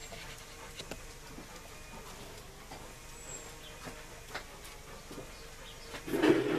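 Quiet outdoor background with scattered faint clicks and a few short high chirps, then, about six seconds in, a brief louder scrape and knock as a person sits down at a plastic garden table.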